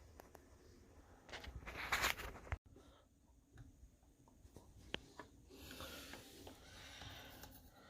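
Faint handling noises from taking apart a washing machine. A short scraping rustle comes about a second and a half in and stops abruptly, followed by scattered light clicks and taps.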